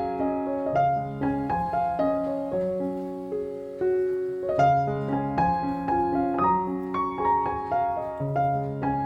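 Background piano music: a gentle melody of struck notes over a repeating bass line.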